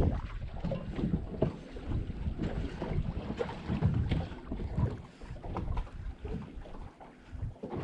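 Wind gusting and rumbling on the microphone out on open water from a kayak, in irregular waves of low noise.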